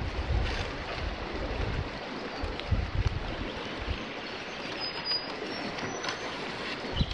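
Steady rush of flowing river water, with low wind gusts buffeting the microphone in the first two seconds and again around three seconds in. A low thump near the end.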